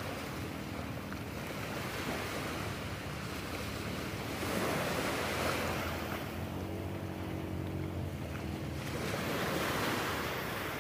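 Small waves breaking and washing up over rocks and sand at the water's edge, the rush swelling and easing several times as each wave comes in.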